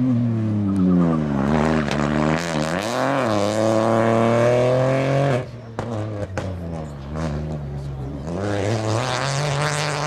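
Peugeot 208 rally car's engine coming off the throttle, then accelerating hard, its pitch rising through the gears with a brief dip at a shift. The sound cuts off abruptly about five seconds in, then the engine is heard accelerating again, with another gear change near the end.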